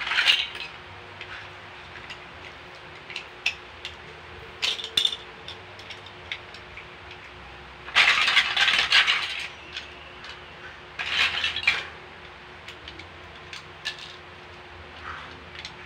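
Plastic Lego bricks clattering and clicking as a hand rummages through a loose pile of them, in scattered bursts, loudest about eight seconds in and again around eleven seconds.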